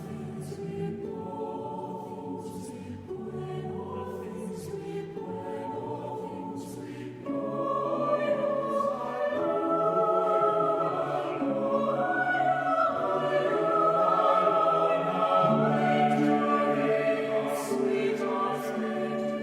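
Slow choral music with long held chords. It opens softly on low notes, and about seven seconds in higher parts enter and it grows louder.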